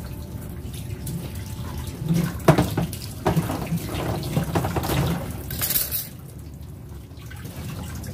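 Water running from a tap into a stainless steel sink during washing up by hand, with a few sharp knocks and clatters of items against the sink.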